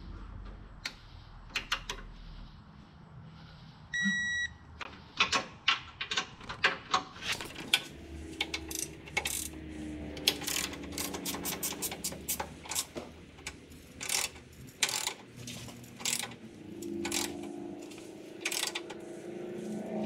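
Ratchet of a wrench clicking in quick irregular runs as a bolt is tightened. A short beep about four seconds in.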